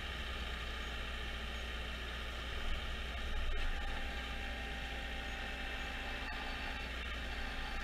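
Jarcrac Dual forwarder's engine running steadily under load as its Nisula/FTG P30 crane unloads pulpwood logs onto a pile. A faint whine comes in for a few seconds midway, with a couple of light knocks.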